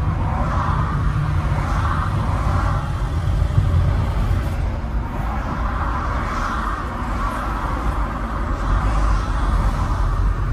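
Road vehicle on the move: a steady low engine and road rumble, with a hissing layer above it that swells and eases every second or two.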